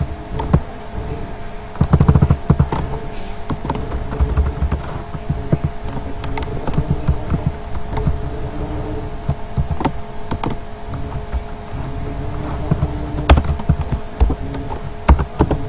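Computer keyboard typing: irregular runs of keystrokes over a steady faint electrical hum.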